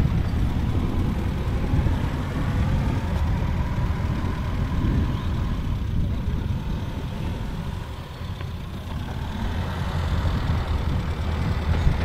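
Massey Ferguson 35 tractor engine idling with a steady low rumble. It eases off slightly about two-thirds of the way through, then picks up again.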